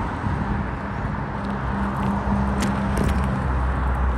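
Wind rumbling on the microphone of a phone mounted on a moving bicycle, with a low hum underneath and a couple of light clicks about two-thirds of the way in.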